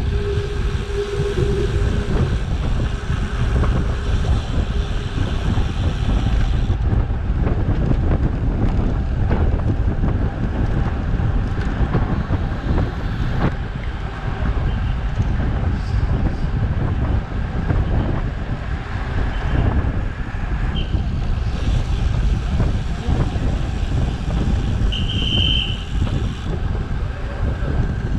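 Wind buffeting a GoPro action camera's microphone while cycling: a loud, steady, low rumble that rises and falls with the gusts.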